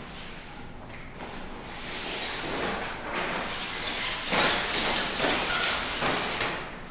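Rustling and scraping of large sheets of material being dragged, folded and bundled across a hard floor, with footsteps. It grows louder partway through and is loudest for a couple of seconds before the end.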